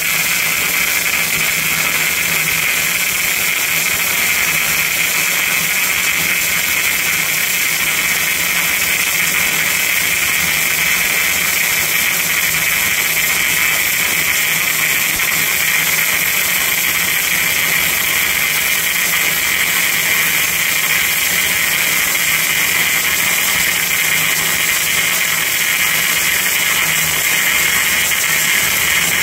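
MIG/MAG gas-shielded welding arc laying a continuous bead on steel, running loud and steady without a break.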